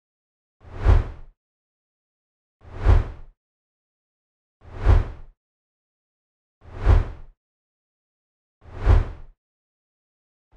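Five identical short, low booms with a hiss on top, evenly spaced about two seconds apart, each swelling and fading in under a second, with silence between: a looped sound effect or beat.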